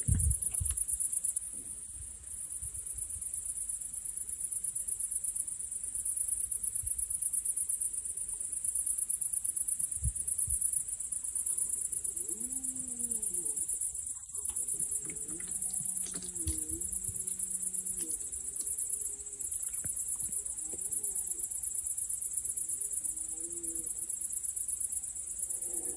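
Crickets chirring steadily in a continuous high trill. From about halfway in, faint distant animal calls with a rising-and-falling pitch come in several times over the insect sound.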